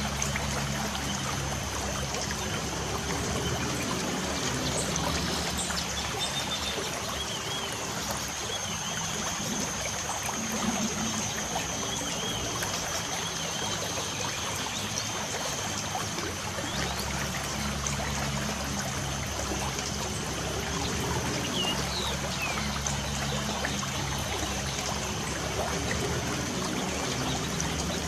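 Steady light rain with a trickling water sound, and a few short bird chirps now and then.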